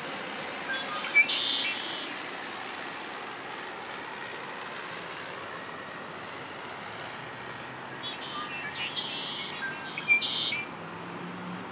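Male red-winged blackbird singing its conk-la-ree song twice, about seven seconds apart, each a few short notes ending in a buzzy trill, over a steady background hiss.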